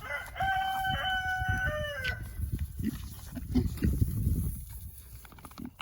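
Rooster crowing once, a held call of about two seconds that falls in pitch at the end, followed by low, irregular thumping noises.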